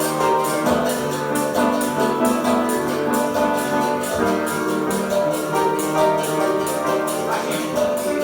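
Live piano, berimbau and caxixi shakers playing together: sustained pitched notes under a steady, even shaking rhythm from the caxixis.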